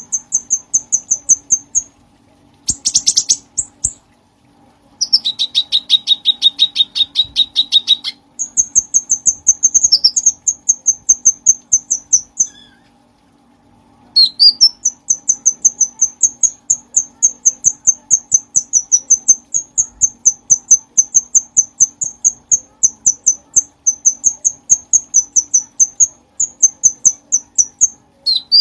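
Cucak cungkok singing, rapid runs of short, high, repeated chirping notes, several a second, with two brief pauses. One run is noticeably lower in pitch. A faint steady hum lies under it.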